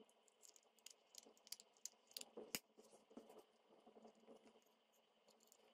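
Near silence with a handful of faint clicks and taps as the plastic case of a wall-plug battery charger is pressed closed and handled, the sharpest a little over two seconds in.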